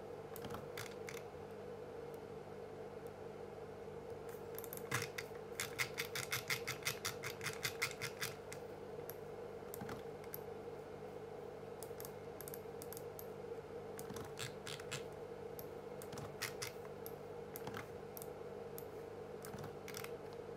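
Computer keyboard typing: scattered single keystrokes, with a quick run of rapid key presses about five seconds in lasting roughly three seconds, over a faint steady hum.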